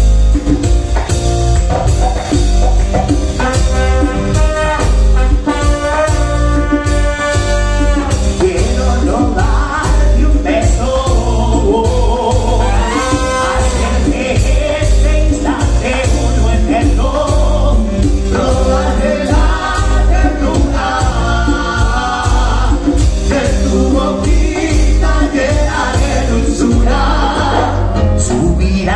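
A live Latin band plays a romantic dance tune. Trumpet and trombone carry the melody over a steady beat of congas, timbales and bass, with singing at times.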